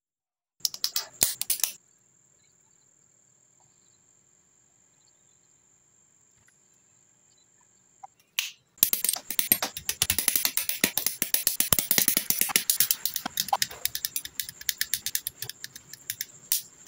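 Plastic model kit parts clicking and snapping together in the hands for about a second, then, after a quiet stretch with a faint steady high tone, a dense run of rapid clicks and snips as hobby nippers cut parts from the plastic runner and the parts are handled.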